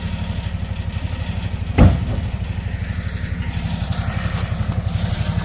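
An engine idling steadily with an even low pulse, with a single heavy thump about two seconds in.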